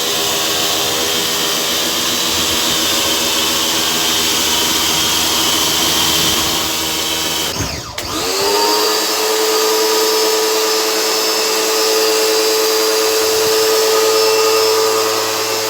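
H&L ABW VBB 70 electric high-pressure washer running, its motor and pump giving a steady whine over a hiss. About eight seconds in the motor briefly drops out, then spins back up with a rising whine and settles into a steady, higher hum.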